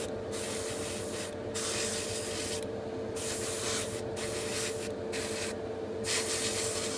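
Airbrush spraying thinned paint: a steady hiss of air and paint that stops and restarts about six times. A steady hum runs underneath.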